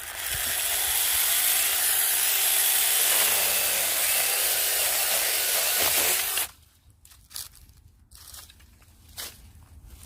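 18 V cordless mini chainsaw running and cutting through a fruit-tree branch for about six seconds. The motor's pitch sags just before it stops suddenly. A few faint knocks and rustles follow.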